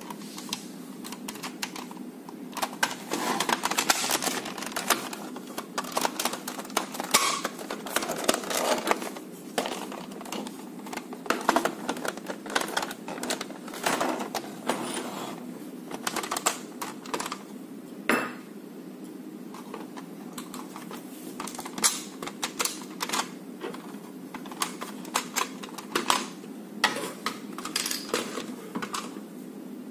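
Hard plastic parts of a Nerf Elite Retaliator blaster being handled and fitted together: irregular clicks, taps and clatter of the shell halves and internal pieces, coming in busy clusters with short pauses between.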